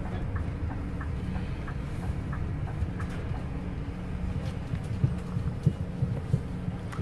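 Coach engine and running gear rumbling steadily at low speed, heard from inside the cabin, with a light regular ticking in the first few seconds and a few sharp knocks and rattles in the last two seconds.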